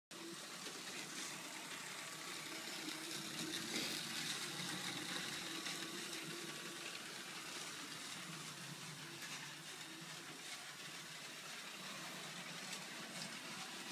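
Lego Power Functions train motor running with a steady whir as the modified Lego ghost train 9467 rolls along plastic track.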